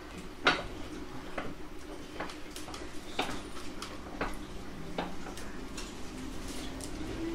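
719 series electric train standing with a steady low hum and a series of sharp clicks and knocks, roughly one a second. About six seconds in, a whine begins to rise in pitch as the train starts to pull away.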